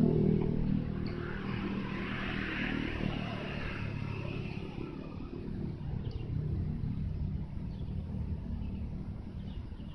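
A motor vehicle passing close by and fading away in the first second, leaving a steady low rumble.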